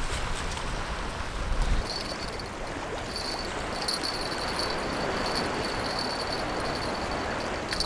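Choppy sea water washing against a concrete sea wall, a steady even wash, with wind rumbling on the microphone for the first couple of seconds.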